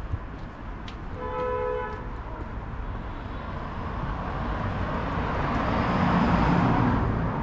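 A car horn sounds once, briefly, about a second in. Then a passing vehicle's engine and tyre noise builds, loudest near the end, over steady street traffic.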